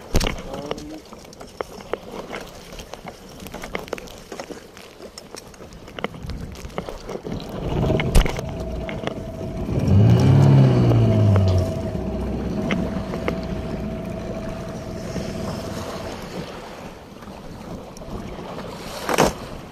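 Noise of a small fishing boat at sea, wind and water with scattered knocks, one sharp one about eight seconds in. About ten seconds in, a low droning note falls in pitch over a second or so, and a steady higher tone holds for several seconds.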